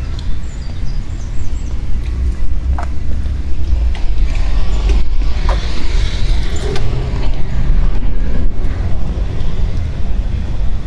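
Outdoor town street ambience recorded on the move: a steady low rumble with a few scattered clicks and knocks, growing somewhat louder about four seconds in.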